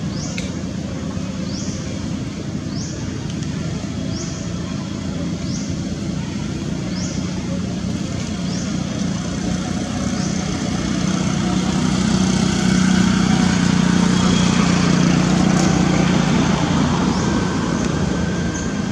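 Outdoor ambience with a steady motor-traffic drone that grows louder through the second half. Over the first half, a short rising high-pitched chirp repeats about every second and a half.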